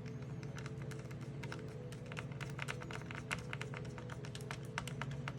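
Quick, irregular small clicks and ticks of a precision screwdriver working small screws in a laptop's case, over steady low tones.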